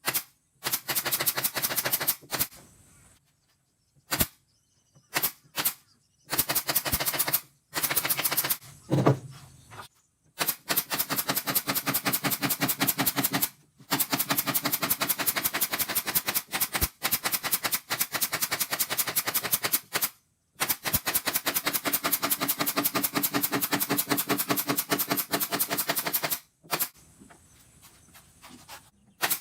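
A power tool running in bursts of rapid, evenly spaced hammering clatter. There are several bursts of one to six seconds each, with short pauses between them.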